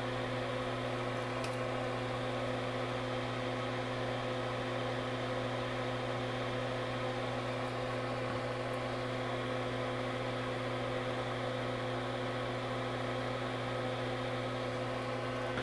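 A small electric motor humming and whirring steadily at constant speed, with several steady tones.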